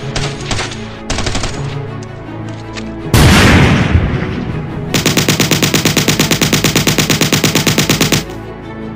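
Battle sound effects of gunfire over music: a few scattered shots, then about three seconds in a loud blast that dies away over a second, then a rapid machine-gun burst lasting about three seconds that cuts off suddenly.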